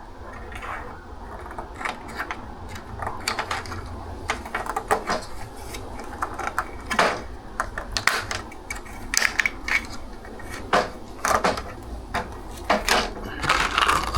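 Irregular clicks, taps and knocks of small metal and plastic parts being handled: a replacement screen door roller assembly being fitted and adjusted.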